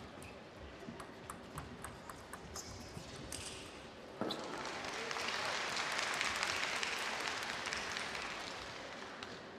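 Table tennis rally: a quick run of ball clicks off bats and table, about three a second. About four seconds in the crowd breaks into applause that swells and then slowly dies away.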